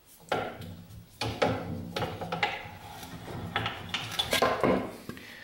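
Irregular metal clinks and knocks of hand tools and steel parts being handled on a benchtop milling machine, about five separate bursts.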